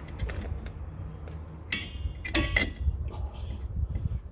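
Metal clinks and small rattles of a steel drum-brake return spring and tools as the spring is fitted to the brake shoes, with a couple of ringing clinks in the middle, over a low steady rumble.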